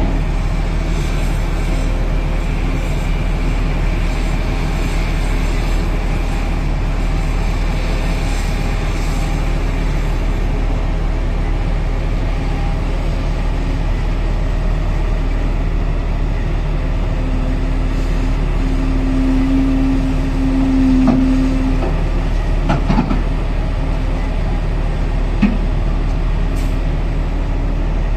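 Heavy diesel engines of a Volvo EC950E crawler excavator and a Belaz haul truck running steadily as the excavator loads the truck. The engine tone swells louder for a few seconds past the middle, and a few sharp knocks follow.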